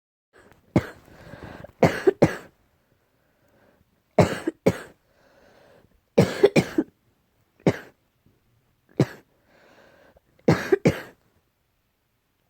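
Repeated coughing in short bouts of one to three sharp coughs, with faint breaths drawn in between. The coughing is put down to an allergy, and it stops near the end.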